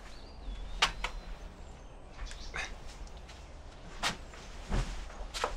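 About five light knocks and taps spread over a few seconds: footsteps and door handling as people come in through a doorway into a room.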